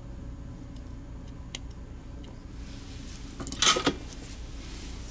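Brief clatter of a small mouse circuit board and a desoldered mouse switch being set down on a work mat, about three and a half seconds in, after a single light tick. A steady low hum runs underneath.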